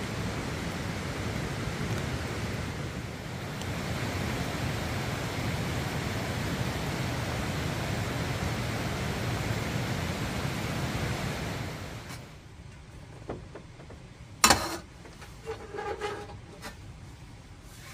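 Steady rain falling. About twelve seconds in it gives way to a much quieter indoor sound, with a sharp click and a few light knocks.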